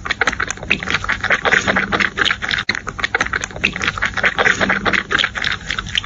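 Kitten suckling at a milk bottle: quick wet sucking and smacking clicks, several a second.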